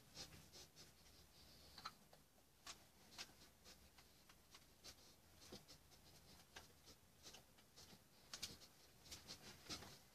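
Faint, irregular scratching and tapping of a paintbrush working paint on a painting surface, the strokes coming more often near the end.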